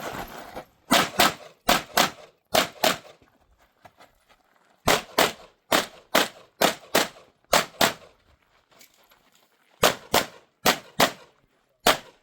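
Pistol shots fired in quick pairs, each pair about a third of a second apart, in three rapid strings with pauses of about two seconds between them: a competitor firing double taps on a USPSA stage.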